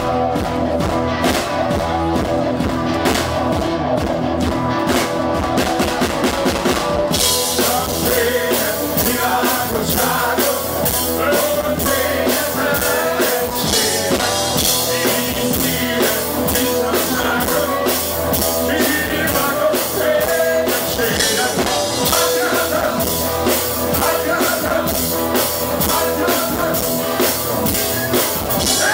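Live blues band playing with a full drum kit; the cymbals come in strongly about seven seconds in.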